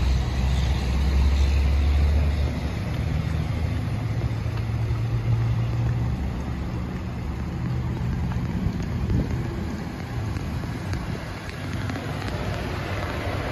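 Road traffic noise: passing vehicles make a low rumble that is loudest in the first couple of seconds and dies away after about seven seconds, over a steady hiss of traffic.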